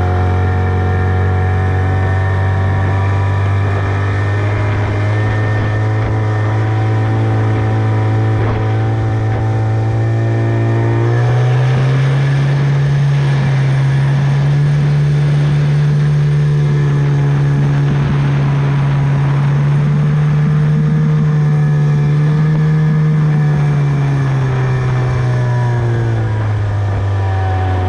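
Tohatsu 25 outboard motor running under way at a steady speed, then opened up about eleven seconds in so its pitch rises and holds higher, before easing back down near the end.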